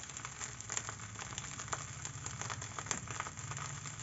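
Fried rice sizzling in a steel wok over the heat, with frequent small crackles and a steady low hum underneath.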